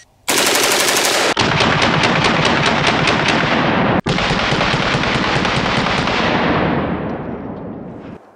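CMMG Mk W-15 rifle in .458 SOCOM firing full auto: a long string of rapid shots. It breaks off for an instant about four seconds in, then carries on and fades away over the last two seconds.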